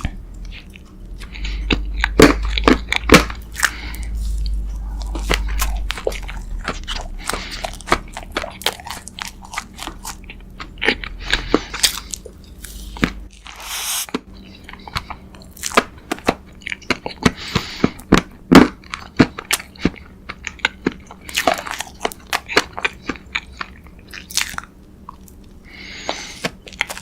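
A person chewing and crunching food close to the microphone, with many sharp, irregular crunches.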